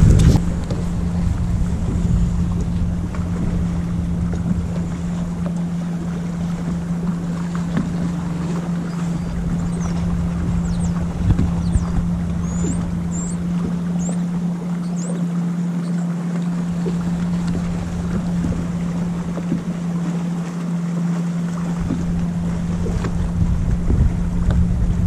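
Electric trolling motor on a bass boat humming at one steady low pitch, with wind buffeting the microphone that eases off for several seconds midway.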